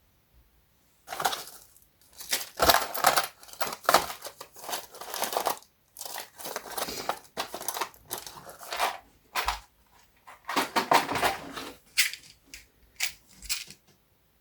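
Irregular bursts of rustling and crinkling, with a few light knocks, as parts and packaging are handled while rummaging through hardware for screws.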